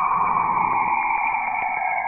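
Saturn's radio emissions, recorded by a spacecraft and converted into sound: a steady band of radio hiss that slowly falls in pitch, with faint clicks through it.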